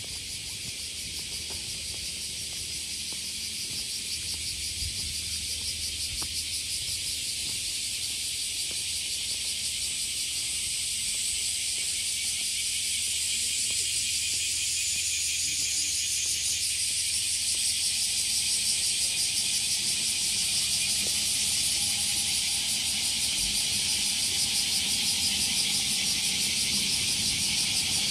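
Cicadas buzzing in a dense, steady high-pitched chorus that grows gradually louder.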